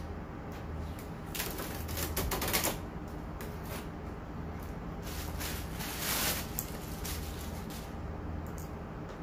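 Hands handling the plastic housing of a Toshiba tower air purifier: a run of clicks and knocks mixed with short rustling bursts, busiest in the first few seconds and again about six seconds in.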